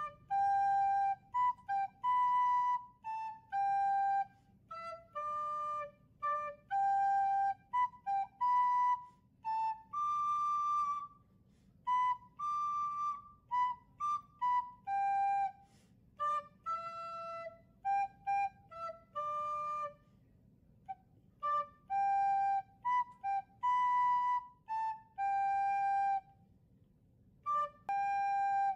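Plastic soprano recorder playing a simple unaccompanied tune, note by note with short gaps between them. It pauses briefly twice, near two-thirds of the way through and near the end.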